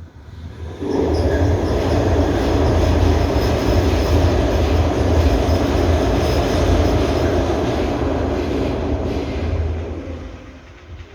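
Loud rumble of a passing vehicle, with a faint high whine over it, coming in suddenly about a second in and fading away near the end.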